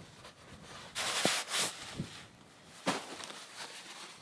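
Camping gear being handled in gloved hands: a loud rustling about a second in, with a few separate clicks and knocks.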